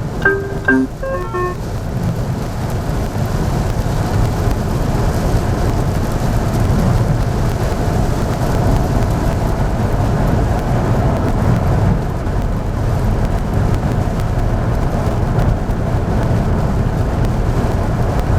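Car cabin noise while driving in rain: a steady low rumble of tyres and engine on the wet road, with a lighter hiss of rain. A few short marimba-like chime notes sound in the first second and a half.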